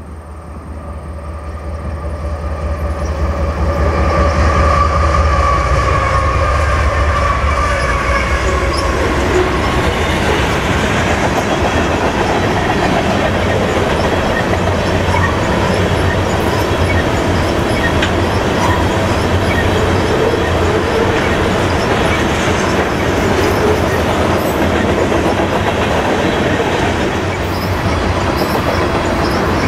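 Two GE diesel-electric locomotives, an ES44AC and an AC44CW, approach and pass at speed. Their engine drone and whine swell over the first few seconds and the whine dips in pitch as they go by. Then a loaded crude oil train of tank cars rolls past with steady wheel rumble and clickety-clack over the rail joints.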